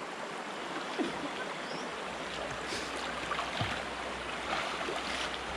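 Water sloshing and swirling around the legs of people wading through a muddy stream, with a few light splashes over the steady wash of flowing water.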